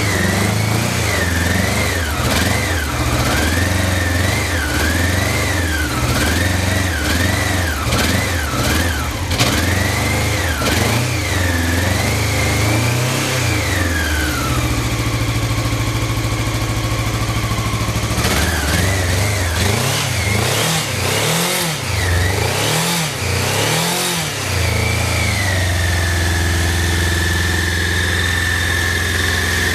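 Engine revved in repeated throttle blips, its pitch rising and falling again and again. It drops to a lower steady speed for a few seconds midway, is blipped again, then settles to a steady run near the end. The seller lists its idle as unstable.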